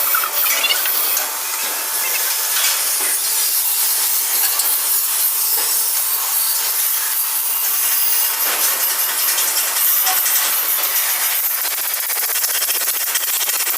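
A loud, steady hiss with a fine crackle, mostly high-pitched with little low rumble.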